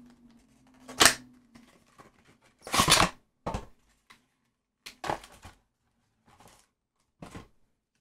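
Weiss Schwarz trading cards and their packaging being handled: about six short rustles and crinkles, the longest about three seconds in, with quiet gaps between them.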